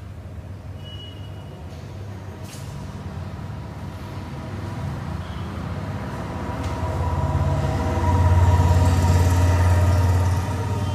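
Low engine rumble with a few steady tones above it, building gradually and loudest from about eight seconds in, then easing off near the end.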